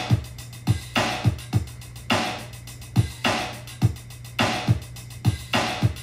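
Hip-hop instrumental beat with no vocals: drum-machine kicks and a snare or clap hitting about once a second over a steady bass note.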